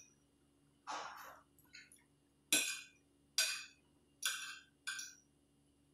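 Metal fork and spoon clinking and scraping on a ceramic plate during a meal: about six short, separate clinks, each with a brief ring, the loudest about two and a half seconds in.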